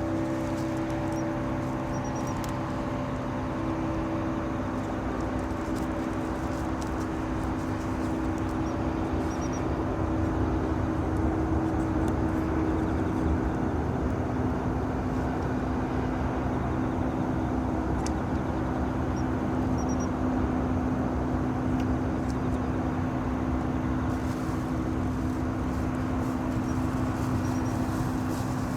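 An engine running steadily, a low even hum over a haze of noise; one of its tones fades out about halfway through. Faint short high chirps come now and then.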